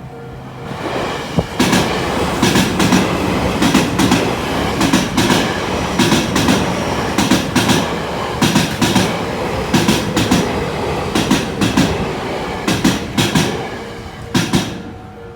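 Train passing over a level crossing, its wheels clacking in quick pairs about once a second over the rail joints, the last pair near the end. A level-crossing warning bell rings with a pulsing tone at the start and again as the train clears.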